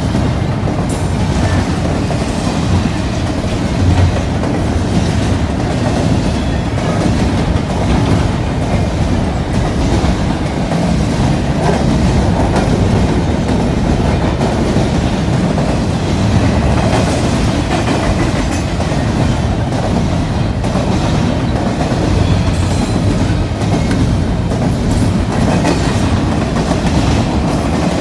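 Double-stack intermodal freight train's container well cars rolling past at close range: a steady, loud rumble of steel wheels on rail with rattling and clicking as the trucks pass over the track.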